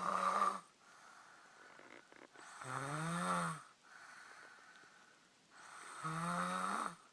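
Snoring in normal sleep: one snore tailing off at the start, then two more, each about a second long and about three seconds apart, with quiet breathing in between.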